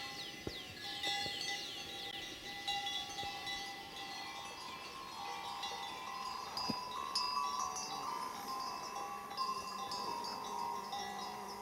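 Several collar bells on grazing horses ringing irregularly, their tones of different pitches overlapping, with a couple of sharper knocks.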